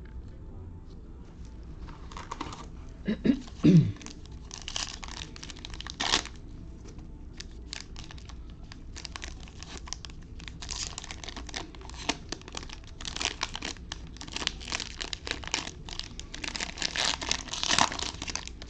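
Foil trading-card pack wrapper being torn open and crinkled by hand, a dense run of crackling that keeps going for most of the stretch. A brief low sound that slides down in pitch stands out about three seconds in.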